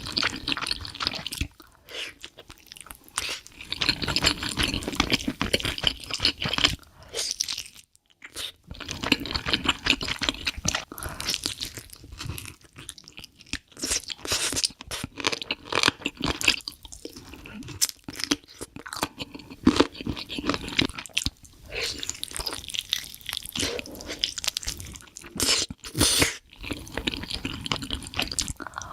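Close-miked eating: crunchy bites and chewing in uneven bursts, with a brief pause about eight seconds in.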